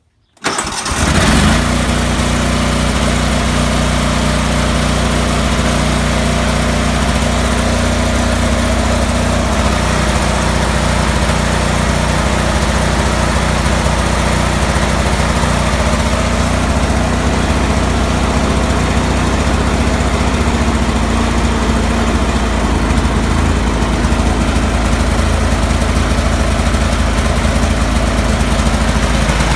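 Kohler CH18 18-horsepower V-twin engine on a Cub Cadet 3184 lawn tractor idling roughly, the weird idle the owner is showing as a fault. It comes in suddenly about half a second in and runs steadily.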